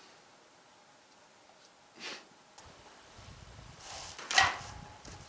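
Near silence, then about halfway in a steady high insect trill starts, like crickets, over a low rumble, with one sharp knock near the end.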